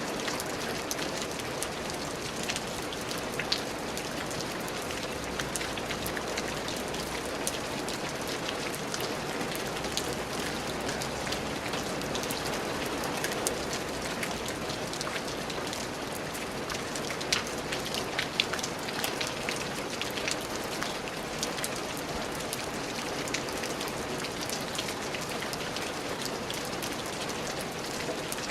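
Steady rain falling on a surface, a continuous patter with scattered louder individual drop hits.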